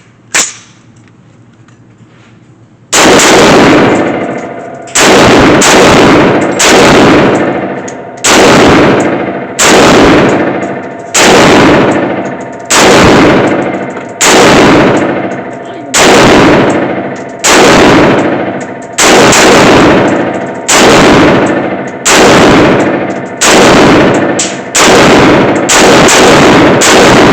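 A series of about twenty gunshots from a firearm, starting about three seconds in and fired steadily, roughly one shot every second or so. Each shot is loud and echoes away before the next.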